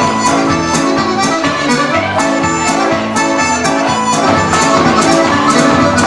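Accordion playing a dance tune through a PA, with a steady beat.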